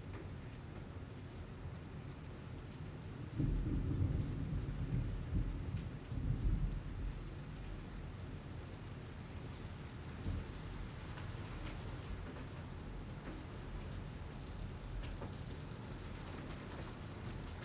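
Steady rain falling and pattering, with a low rumble of thunder from about three to seven seconds in, the loudest part.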